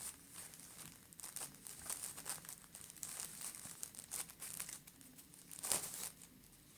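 Smartphone packaging crinkling and rustling as it is handled and opened by hand, with irregular crackles and the loudest rustle near the end.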